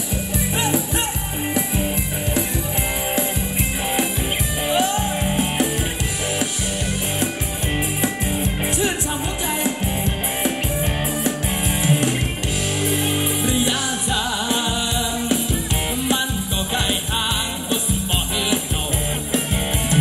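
Thai ramwong dance music played by a band, with a singer over a steady, driving drum and bass beat.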